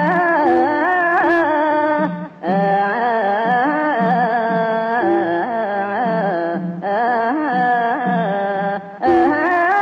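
Khmer classical song with mohori ensemble accompaniment: a solo singing voice in long, wavering, ornamented phrases over the instruments, with brief pauses between phrases about two and seven seconds in.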